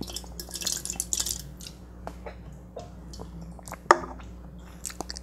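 Small wet clicks and liquid sounds as an aluminium can of iced tea is handled, then the can is set down on a wooden tabletop with one sharp knock just before four seconds in.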